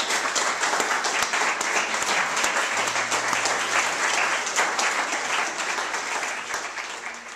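Audience applauding, a dense spread of many hands clapping that fades out near the end.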